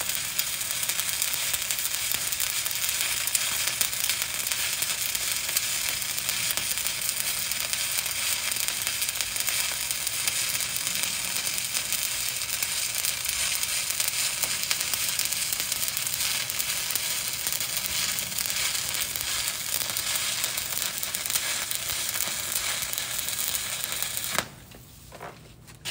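Stick-welding arc of a 7018 electrode being dragged up a vertical plate, giving a steady crackling hiss. The arc cuts off about a second and a half before the end, and a couple of faint knocks follow.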